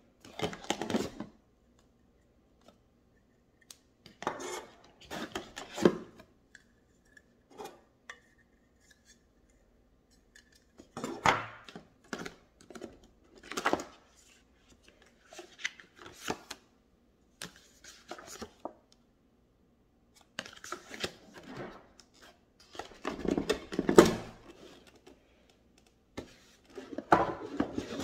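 Unpacking noises: a cardboard box insert and paper manual rustling and scraping as hard plastic hair-dryer nozzle attachments are lifted out and set down on a table, in scattered bursts of handling with knocks and clatter.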